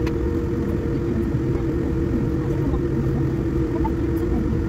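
Airliner cabin noise inside a KLM Boeing 787-9 taxiing after landing: a steady low rumble from the GEnx engines at idle and the airframe rolling on the taxiway, with a constant hum.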